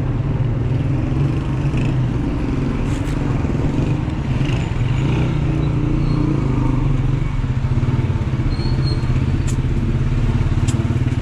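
A motorcycle engine running steadily close by, a low rumble, with a few light ticks near the end.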